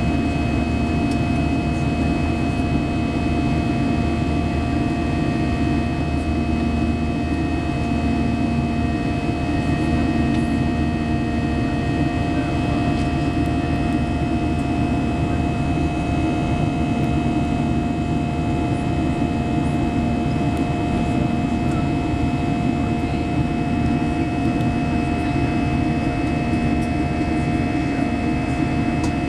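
Steady in-flight cabin noise of a Boeing 737-800: a constant low rush of airflow and CFM56 jet engines, with a few fixed whining tones over it.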